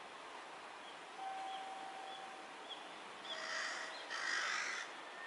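A bird gives two harsh calls, about three and four seconds in, over steady outdoor background noise, with faint short high chirps repeating about twice a second.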